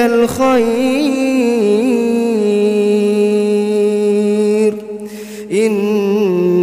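A male Quran reciter chanting in melodic tajwid style, drawing out the last word of 'bi-yadika al-khayr' as one long note with wavering turns that settles into a steady hold. He breaks off about five seconds in and takes up the next phrase.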